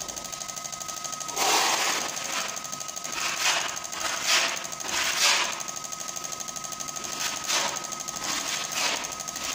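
Fuel injectors on an injector cleaning and testing bench clicking in a rapid, even rhythm as they are pulsed, over a steady whine, with several short bursts of hissing.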